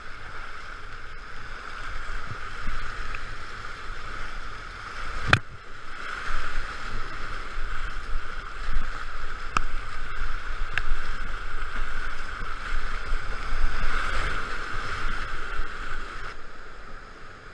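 Whitewater rapids of a high-running creek rushing around a kayak as it runs them, with paddle strokes splashing in the water. A sharp knock comes about five seconds in, and two fainter clicks follow a few seconds later.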